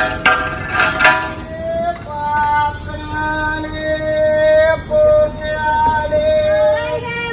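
A voice singing long held notes in a slow, melodic line, with sharp rhythmic beats in the first second.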